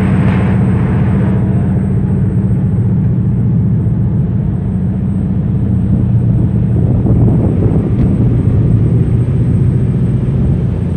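A fishing boat's engine running steadily with a low, even drone, heard on board. A hiss of rushing water and wind fades out in the first second or two.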